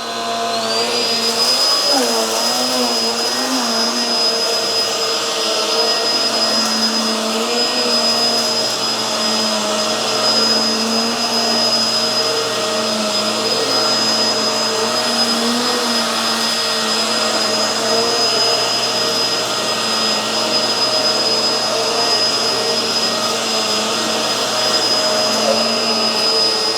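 Hoover Tangle Gard upright vacuum cleaner running steadily while vacuuming: a high motor whine over a rushing airflow, with lower humming tones that waver slightly. The whine rises a step in pitch about half a second in.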